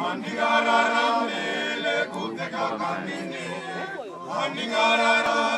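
A group of men singing together unaccompanied, several voices holding notes in harmony, with a short lull about four seconds in.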